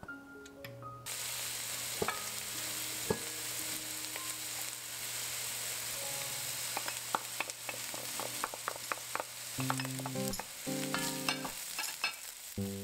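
Chopped onion and garlic sizzling in hot olive oil in an enamelled pot. The sizzle starts suddenly about a second in and holds steady, with scrapes and taps of a wooden spoon stirring the pan.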